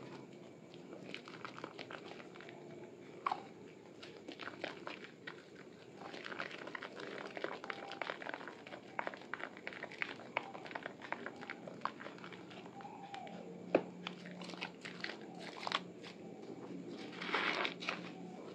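Hands squeezing and kneading thick wet soap lather around a soaked bar of soap: squishing with many small irregular crackles and clicks of bursting foam, and a louder squelch near the end.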